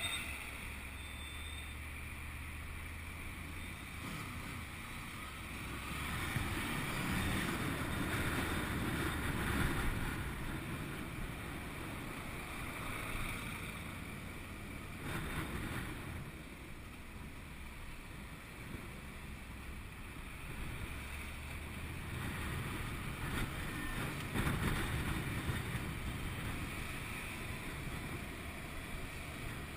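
Wind rushing over a helmet-mounted camera's microphone, with the Honda VFR800's V4 engine running underneath as the motorcycle rides through slow traffic. The rush swells twice as the bike picks up speed, a few seconds in and again past the middle.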